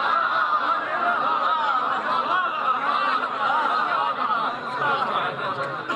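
An audience of many people laughing together, their voices overlapping, easing off near the end.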